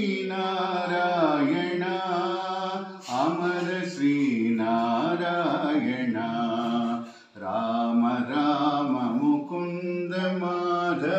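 A man's voice chanting a Hindu mantra read from a prayer book, in long sing-song phrases on a few held pitches. The chant breaks briefly for breath about 3 seconds in and again about 7 seconds in.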